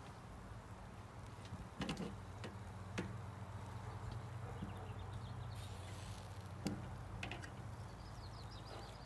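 A few light clicks and taps of metal tongs and a basting brush on a charcoal kettle grill's grate, over a steady low hum, with faint bird chirps near the end.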